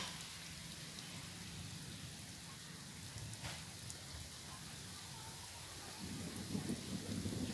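Wind rumbling on the microphone, growing stronger about six seconds in, with a faint click or two.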